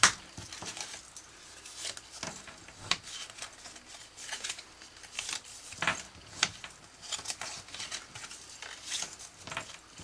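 Scored cardstock being folded along its score lines and creased with a bone folder: irregular short paper rustles and scrapes.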